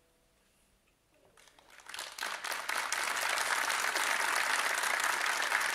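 A moment of near silence, then a large audience breaks into applause about a second and a half in; the clapping swells within a second to a steady, dense roar of many hands.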